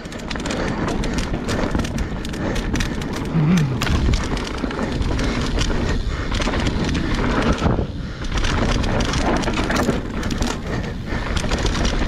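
Mountain bike descending a rough dirt trail: a continuous rumble of tyres rolling over dirt and roots, with many sharp clicks and knocks from the bike rattling over the bumps.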